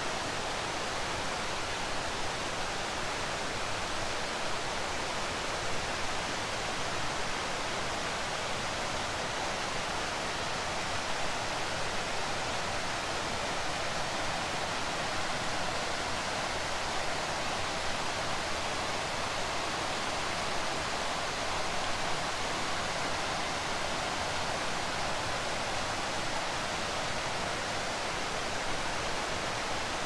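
Mountain river water rushing over rocky riffles and small waterfalls: a steady, even rush of white water.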